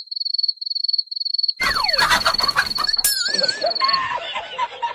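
Rapid, even cricket chirping, heard alone at first. After about a second and a half a noisy commotion starts over it, with a sharp knock about three seconds in, and the chirping stops near the end.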